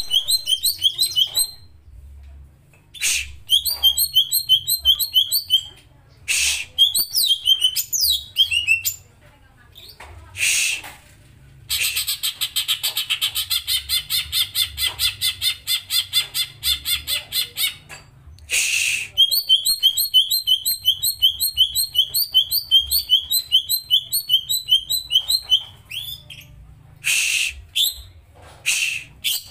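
Cucak ijo (green leafbird) singing in loud phrases of quick, high, whistled notes. In the middle comes a long, fast rolling trill of evenly repeated notes lasting about six seconds, the 'ngeroll' style. Short harsh notes fall between the phrases.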